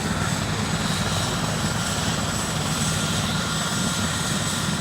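Rescue helicopter approaching to land: a steady, loud rotor and turbine engine noise with a low rumble.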